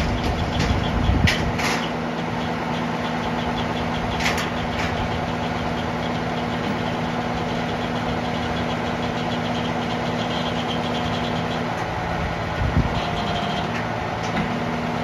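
Rollback tow truck's engine idling with a steady hum. A few sharp clicks come in the first few seconds, and the hum shifts slightly near the end.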